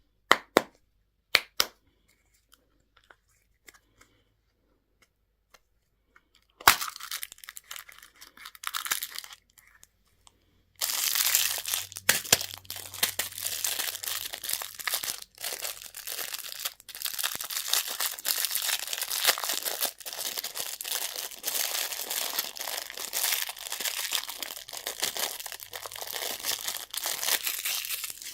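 Plastic candy packaging being unwrapped: a few sharp clicks at first, then crinkling and tearing that becomes continuous from about a third of the way in.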